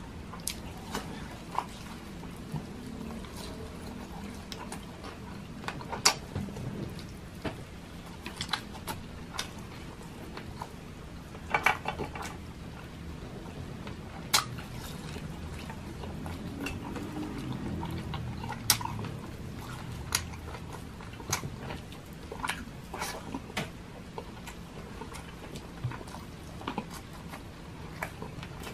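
Close-miked chewing and wet mouth sounds of a man eating fried milkfish (bangus) belly, with short sharp clicks from the mouth every few seconds over a low steady hum.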